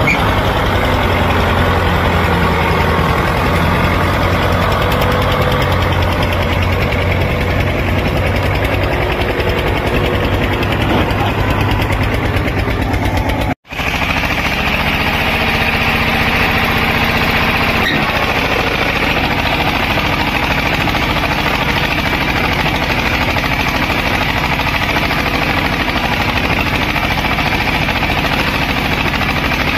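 Diesel tractor engines running steadily with loaded trolleys bogged in mud: a Swaraj 744 FE, then after a momentary break about halfway through, an Eicher tractor.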